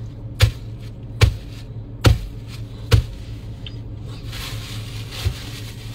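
Four sharp thumps about one every 0.8 seconds, then a softer one near the end, over the steady low hum of a car's cabin.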